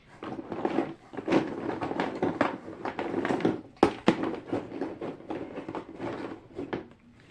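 Plastic fidget toys, pop tubes among them, being rummaged through and handled: a steady, irregular clatter of clicks and plastic crinkling, with one sharper click a little before the middle.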